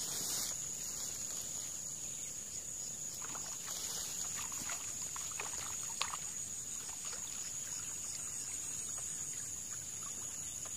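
Steady high-pitched drone of crickets and other insects, with scattered small splashes and rustles through the middle and one sharp click about six seconds in, as a hooked snakehead is worked out of the weedy water.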